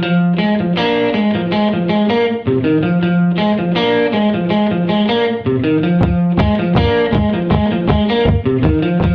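Instrumental intro of a blues song: overdriven electric guitar playing a riff, with a steady bass pulse joining about six seconds in.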